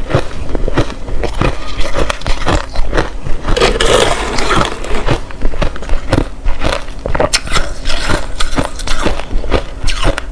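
Close-miked chewing of hard crushed ice: sharp crunches at about two or three a second, with a denser spell of crackling and grinding about four seconds in.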